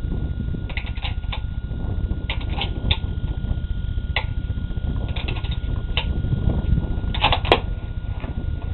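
Wind rumbling on the microphone, with scattered light clicks and ticks, some in quick little clusters and one sharper tick near the end.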